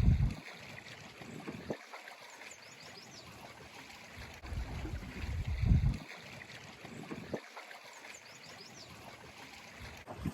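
Lake water lapping and trickling, with a low rumble at the start and another about five seconds in.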